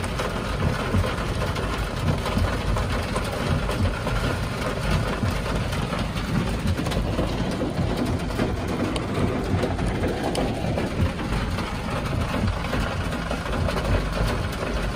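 Heavy rain pattering on a car's roof and windscreen, heard from inside the cabin, over the low hum of the car's idling engine.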